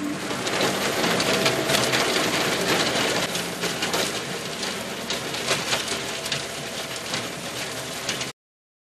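Massey Ferguson 275 diesel tractor running under load with a rotary tiller churning through grass and soil, a dense, steady mechanical din. It cuts off suddenly near the end.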